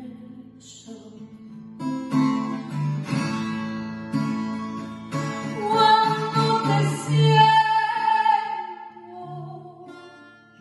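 A song with plucked acoustic guitar and a sung voice. It swells to its loudest about two-thirds of the way through and then fades away.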